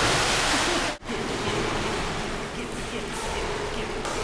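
Swimming pool water splashing: a big splash through the first second, which cuts off abruptly, then a steadier wash of water sloshing and lapping.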